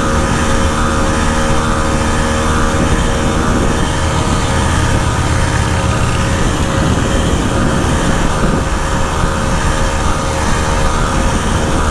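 49cc Motoped Survival Bike engine running steadily at cruising speed, with wind and road noise over it.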